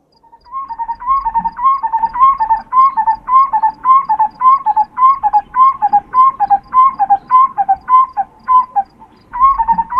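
A wild animal's whistled call, repeated fast and evenly at about two and a half calls a second. Each call is a short rising note followed by a lower one, with a brief pause near the end.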